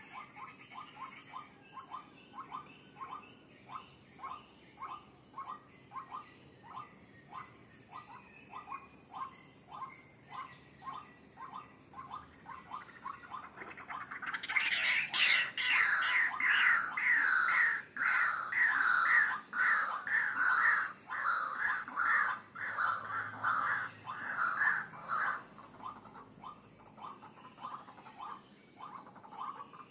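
White-breasted waterhen calling: a steady run of short repeated notes, about two a second. From about halfway, a louder series of higher, falling notes takes over for some ten seconds, then the quieter run goes on.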